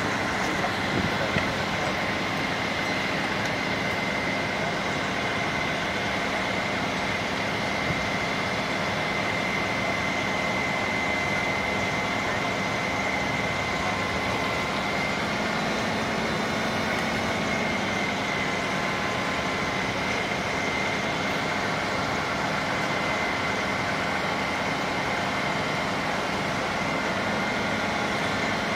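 Fire engine's engine and pump running steadily at high revs, a continuous noise with a thin steady high whine over it.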